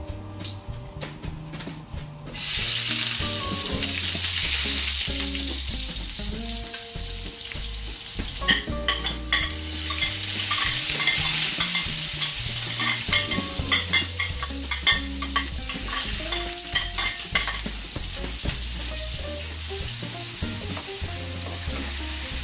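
Hot oil sizzling in a nonstick frying pan, rising to a steady hiss about two seconds in. Soaked red lentils are tipped in and stirred with a spatula, which clicks and scrapes against the pan over the frying sound.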